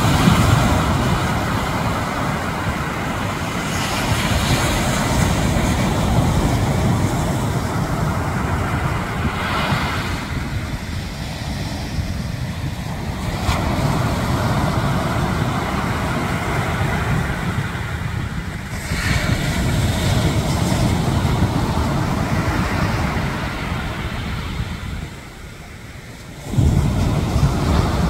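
Sea waves washing and breaking, with wind rumbling on the microphone. The surf swells and eases every few seconds, drops away briefly near the end, then comes back loud.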